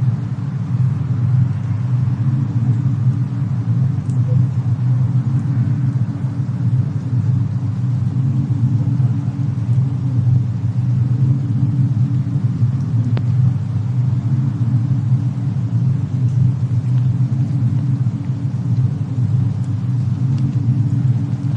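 Fireplace and snowstorm ambience: a steady, deep rumble with a few faint crackles, one about thirteen seconds in.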